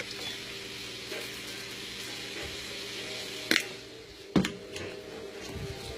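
Cut-up steak sizzling in a frying pan, a steady hiss, with two sharp knocks from the pan or a utensil about three and a half and four and a half seconds in.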